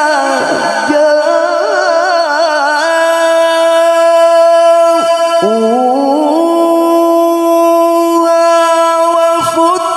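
A male qari reciting the Quran in the melodic tilawah style into a microphone. For the first few seconds he sings a wavering, ornamented run. About five seconds in he breaks off, then rises into one long held note.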